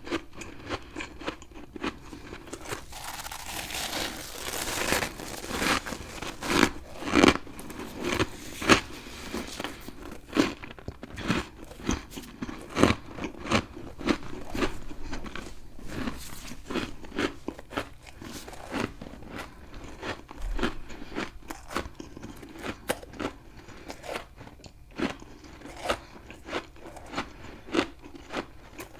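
Close-up biting and chewing of a hard, crunchy chunk of freezer frost (humidifier-grown frost), with rapid sharp crunches several times a second and a hissy, crackling stretch a few seconds in.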